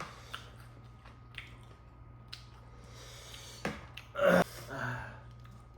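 Soft mouth and eating sounds with small clicks, then a short, loud, breathy throat sound from a person about four seconds in, followed by a fainter one.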